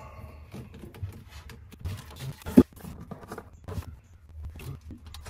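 Scattered light clicks and knocks of hands working wires at a trailer's fuse block, with one sharp click about two and a half seconds in.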